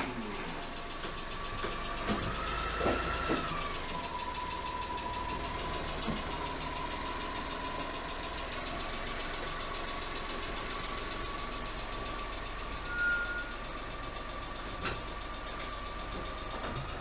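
Honda Acty van's three-cylinder engine running just after starting, with a steady high whine that wavers slightly and a few knocks about two to three seconds in.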